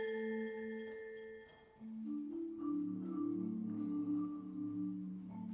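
Percussion ensemble of marimbas and vibraphones playing a slow passage. A held chord rings and dies away almost to silence, then new sustained notes come in about two seconds in, joined shortly after by a low bass line.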